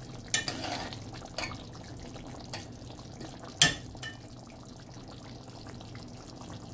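Brown stew chicken simmering in a pot, the thick gravy bubbling steadily, with a few sharp pops, the loudest about three and a half seconds in.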